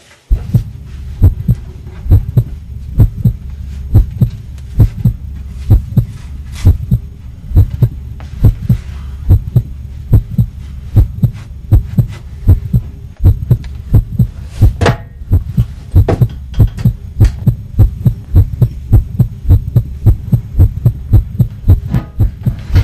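Heartbeat sound effect: a steady run of low thumps, often in close pairs, over a continuous low hum.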